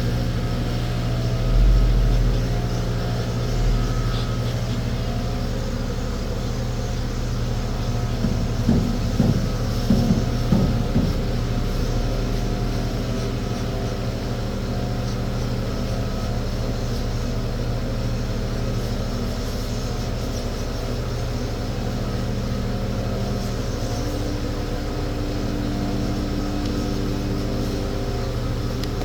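An engine running steadily at a constant speed, a low, even drone. A couple of dull thumps come near the start and a quick cluster of knocks about a third of the way in.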